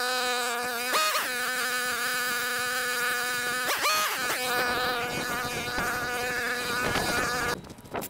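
String trimmer running, cutting overgrowth at the base of a fence: a steady high buzz whose pitch briefly jumps up twice, about a second in and near four seconds, then stops abruptly near the end.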